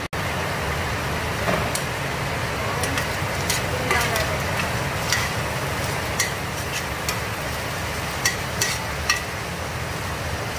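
A metal spatula stirs and scrapes chopped chicken gizzards sautéing in a stainless-steel pot, with a steady sizzle. Sharp metallic clinks come about once a second as the spatula strikes the pot, three in quick succession near the end.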